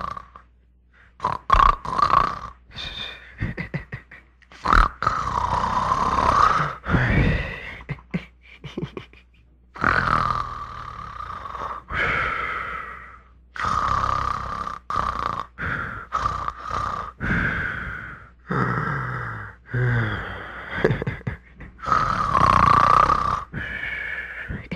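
A man's comical, exaggerated snoring: an uneven run of snores, some long and drawn out, others short and broken up, a few with a low rattle.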